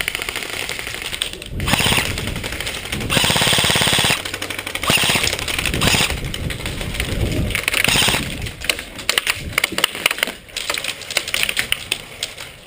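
Airsoft electric guns firing on full auto: several long rapid bursts of clicking shots, then shorter sporadic bursts near the end.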